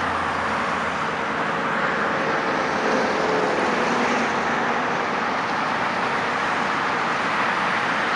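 Steady highway traffic noise: a continuous wash of cars and trucks passing at speed, swelling slightly a few seconds in.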